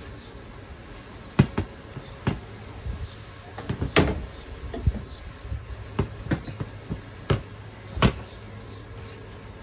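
Irregular knocks and clatters of tools and gear being handled and shifted around inside a metal garden shed, with a few sharper bangs standing out from the lighter rattling.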